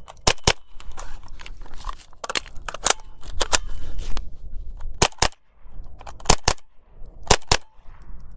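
A GSG-15 .22 LR semi-automatic rifle firing double taps: sharp shots in quick pairs about a fifth of a second apart. There is one pair at the start, a couple of single shots with a gap in the middle, then three more pairs.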